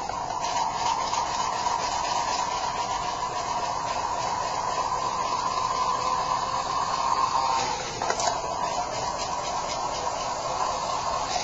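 Powerball gyroscopic wrist exerciser spinning at high speed, close to 9,900 rpm: a steady whirring whine over a hiss, held up by circular wrist motions, with a brief dip in pitch about eight seconds in.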